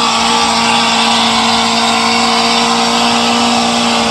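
Modified Suzuki Samurai off-roader's engine held at a steady high rev under load while it climbs through brush, a constant pitched drone with a dense rushing noise over it.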